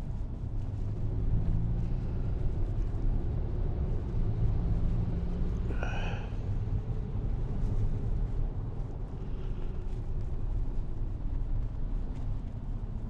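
Steady low rumble of a car's engine and tyres heard from inside the cabin while driving. A short high-pitched tone sounds once, about six seconds in.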